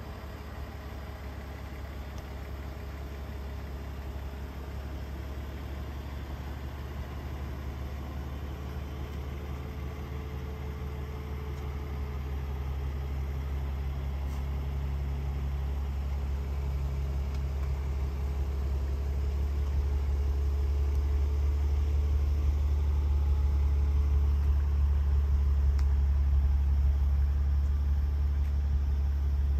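2003 BMW Z4's straight-six engine idling steadily, a low even hum from the exhaust that grows steadily louder as the twin tailpipes come closer.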